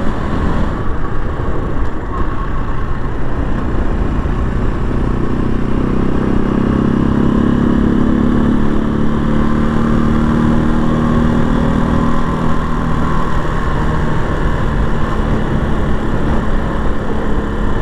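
Janus Phoenix 250's single-cylinder four-stroke engine running while the motorcycle is ridden. Its pitch climbs a few seconds in, holds, then drops off after about twelve seconds, over a steady low rumble of wind and road noise.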